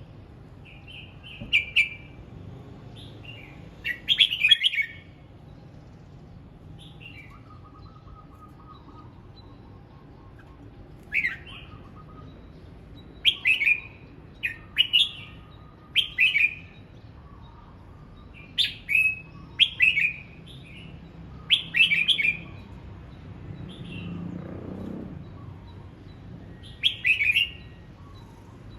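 Red-whiskered bulbul singing: short, loud, warbling phrases repeated every second or two, with a pause of several seconds near the start.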